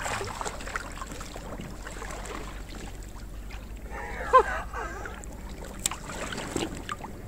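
Water splashing and sloshing as a large carp is drawn into a landing net, with a short vocal exclamation from the man about four seconds in.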